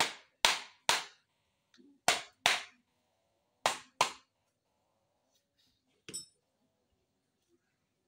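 Sharp blows struck with a hand tool on the pulley end of a Mitsubishi Minicab engine being dismantled, metal ringing briefly after each. Three quick strikes, then two pairs, then a lighter knock about six seconds in.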